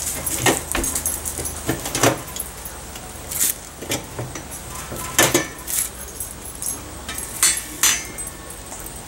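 Steel drum sections and lid of a homemade barrel rocket stove being handled: a series of sharp metal clanks and clinks at irregular intervals.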